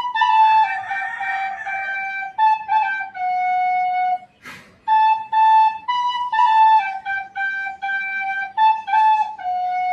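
Penny whistle (tin whistle) playing a slow solo melody, one clear note at a time, with a short break for breath about halfway and a stepwise falling run near the end.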